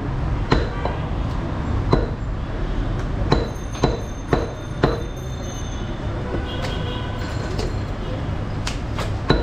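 Butcher's cleaver chopping beef and bone on a wooden stump chopping block: about eight sharp chops at uneven intervals, with a quick run of four around the middle, over a steady low rumble of background noise.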